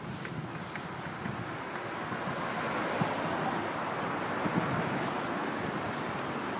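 Steady road traffic noise: an even hiss of passing cars, swelling slightly after a couple of seconds.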